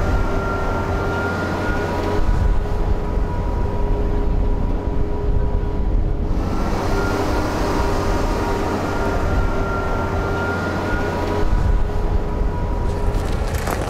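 Tractor and potato harvester running steadily with a continuous mechanical hum and a few steady whining tones. The sound changes abruptly about two, six and eleven seconds in.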